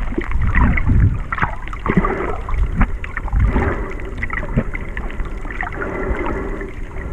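Water heard through an underwater camera: a muffled low rushing that swells and eases, with scattered crackles and clicks throughout.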